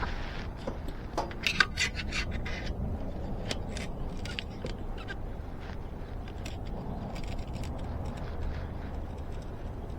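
Light metallic clicks and scrapes of hand work on a bicycle wheel's spokes and spoke nipples with a flathead screwdriver, busiest about a second or two in, then scattered ticks over a steady low background rumble.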